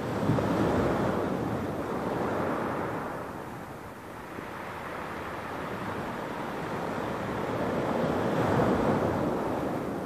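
Small, calm waves lapping onto a shingle beach of rounded pebbles, the water washing over the stones. One wave surges in right at the start, the wash eases off midway, and another builds up near the end.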